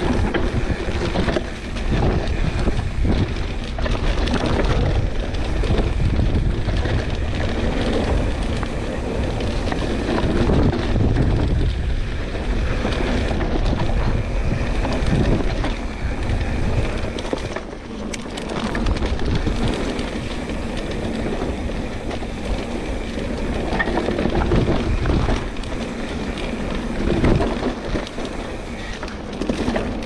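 Pivot Switchblade full-suspension mountain bike ridden fast down a dirt trail: tyres rolling over dirt and leaves, with many short knocks and rattles from the bike over bumps, and wind buffeting the microphone.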